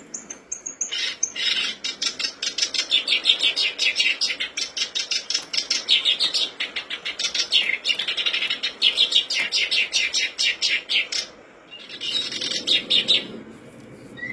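Black-browed reed warbler (kerak basi alis hitam) singing: a long, fast, chattering run of rapidly repeated notes lasting about ten seconds, then a short second burst after a brief pause.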